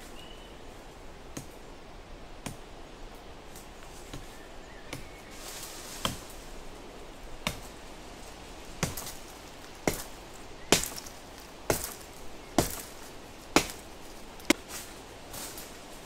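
Hatchet chopping into wood: a series of sharp chops, sparse at first and then about one a second and louder through the second half.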